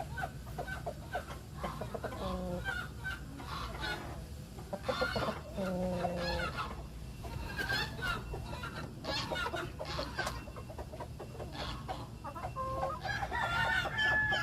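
Salmon Faverolles chickens clucking and calling, many short overlapping calls throughout, with a couple of longer drawn-out calls about two and a half and five and a half seconds in.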